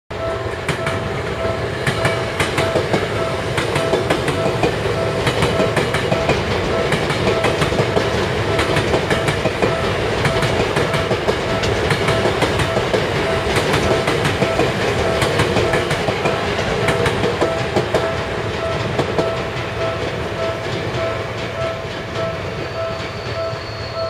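A Japanese level crossing's warning bell rings in a steady, rapidly repeating chime while an electric commuter train passes close by, its wheels clattering over the rail joints. The train noise fades somewhat near the end while the bell keeps ringing.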